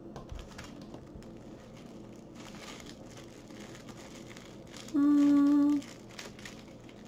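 Small clear plastic bags of diamond-painting drills crinkling as they are handled. About five seconds in, a short steady low hum holds one pitch for under a second and is the loudest sound.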